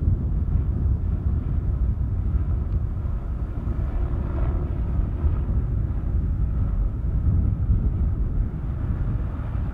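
A loud, steady low rumble with no distinct rhythm or tone.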